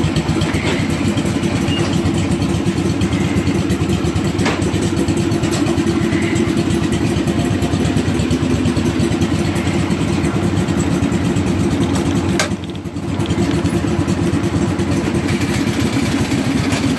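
Wheel Horse garden tractor's engine running steadily as the tractor is driven, with a brief drop in level about twelve and a half seconds in.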